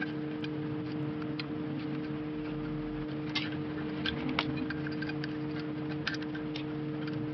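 Light metal ticks and clicks of snap-ring pliers working the bearing snap ring out of a steel steering knuckle, a few scattered clicks over a steady low hum.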